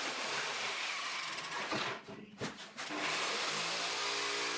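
Jigsaw cutting through a melamine panel, running steadily. The sound drops away briefly just after two seconds in, then the saw carries on with a steady hum.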